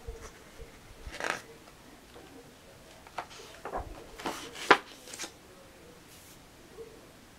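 Glossy pages of a softcover tour book being turned by hand: a paper rustle about a second in, then a longer run of rustling as a page is lifted and turned over, with one sharp snap of paper a little past the middle, the loudest sound.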